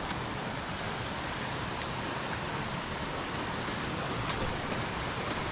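Steady rushing of a jungle waterfall and its stream, an even hiss of falling water with no breaks.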